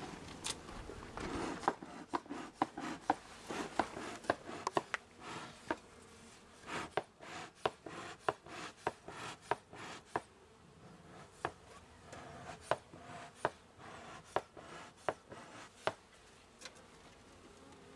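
Wooden beehive frames being pried and worked loose with a hive tool: a long irregular run of sharp wooden clicks and knocks, thinning out near the end, with honey bees buzzing around the open hive.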